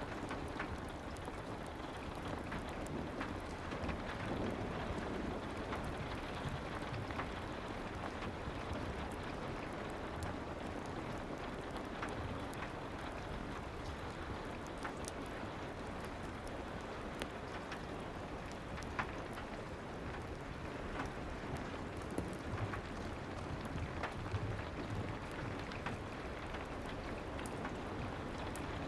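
Soft rain ambience mixed with a fireplace: a steady hiss of rain with scattered small crackles and ticks.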